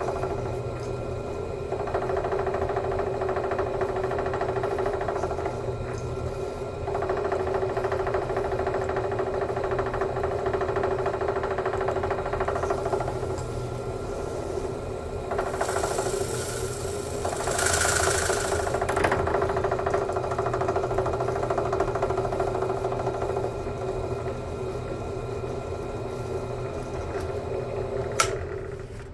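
Electric motor of a shop tool running steadily while the Bilstein shock is being depressurized, with a hissing rush about halfway through. There is a sharp click near the end, and then the motor stops.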